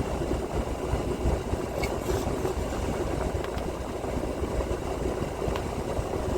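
Freightliner Cascadia's diesel engine idling steadily, heard from inside the cab as a low, even rumble. A few faint clicks sound over it.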